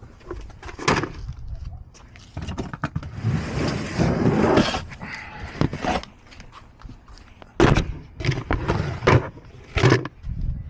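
Handling noises: a series of knocks and thumps, with a stretch of scraping about three to five seconds in and several louder thumps near the end.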